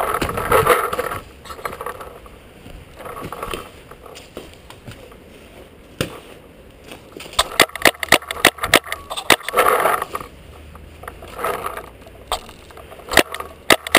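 Paintball markers firing in fast strings of sharp pops, about seven a second, one run about seven seconds in and another near the end. Between them come bursts of scuffing and rustling as the player and the marker-mounted camera move behind the tyre bunker, the loudest of them at the start.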